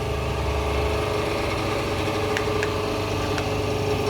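Steady machine hum of a hydraulic hose crimper's power unit running, an electric motor and pump holding one even tone, with a few light clicks.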